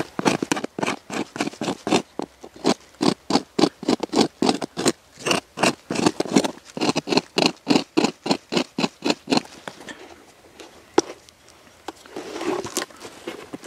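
A pointed tool scratching a line into a thick slab of tree bark in quick repeated strokes, about three or four a second, stopping after about nine seconds. A single sharp click follows, then a brief scraping rustle as the bark slab is handled.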